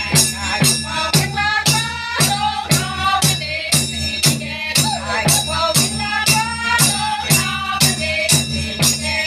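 Traditional dance music: voices singing a melody over a steady beat of sharp percussive strokes, about two and a half a second.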